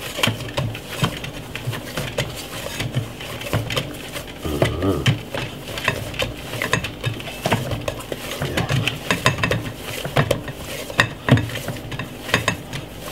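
A hand working dumpling dough in a glass mixing bowl, with irregular knocks and taps of hand and dough against the bowl.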